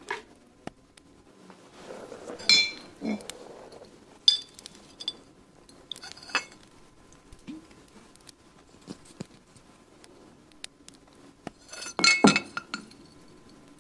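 Light, scattered clinks of small glassware being handled, each with a brief high ring, with a louder cluster of clinks near the end. Soft rustling of a cloth sachet of herbs sounds between them.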